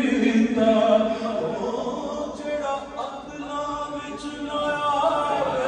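Male voice singing a Punjabi naat in a chant-like devotional style, holding long notes that bend in pitch.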